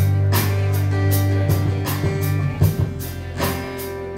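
Background music with guitar and drums, held chords over a steady beat of about two strikes a second.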